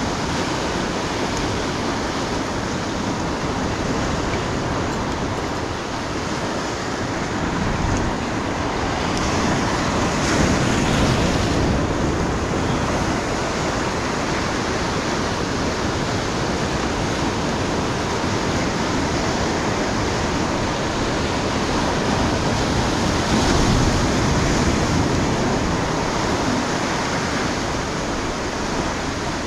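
Sea surf washing and breaking over a rocky shoreline in a continuous rush. It swells louder about ten seconds in and again near twenty-four seconds as bigger waves break.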